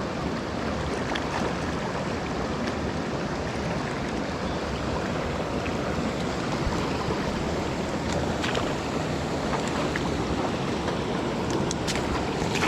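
River water rushing steadily over rocks, with a few faint clicks in the second half.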